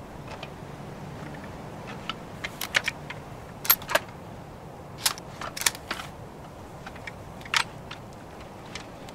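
Sharp metallic clicks and clacks of a scoped rifle being handled and worked, coming irregularly from about two seconds in, loudest a little before the middle.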